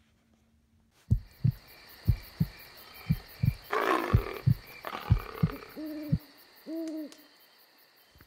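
An owl hooting twice near the end, two short low hoots held at one pitch about a second apart. Before the hoots comes a run of dull thumps, over a faint steady high-pitched buzz.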